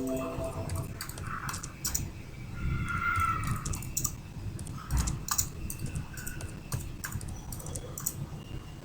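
Typing on a computer keyboard: irregular key clicks throughout, over a low steady rumble.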